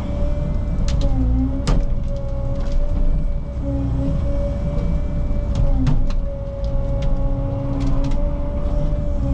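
Caterpillar 306 mini excavator's diesel engine running under load with a steady hydraulic whine that dips in pitch now and then as the controls are worked. Several sharp cracks and knocks, about four, as the machine breaks up a tree.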